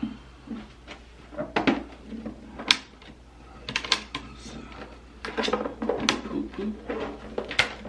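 Irregular clicks, knocks and clatter of a newly unboxed hobby spray booth and its packaging being handled, with a busier run of knocks past the middle and a sharp knock near the end.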